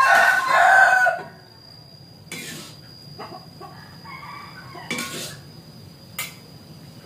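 A rooster crows, the call ending about a second in; after it, softer clucking and a few sharp clinks of a metal spatula against a wok.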